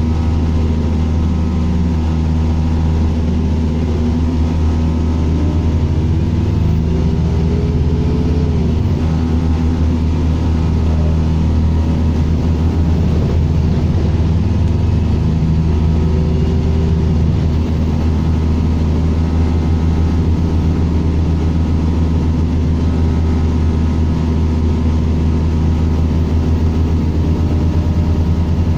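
A bus engine running steadily, heard from on board as a deep drone. A fainter whine rises and falls a quarter of the way in and again about halfway through.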